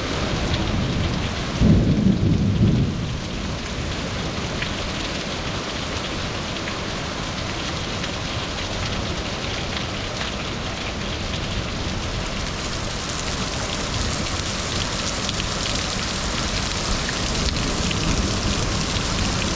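Hail and rain falling steadily, with a low roll of thunder about two seconds in.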